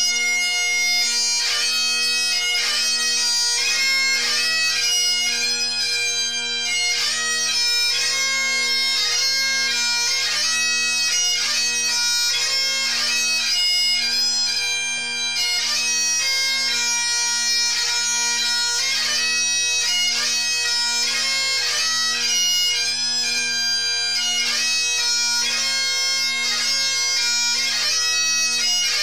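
Scottish bagpipes played live: steady drones sounding under a chanter melody of rapidly changing notes.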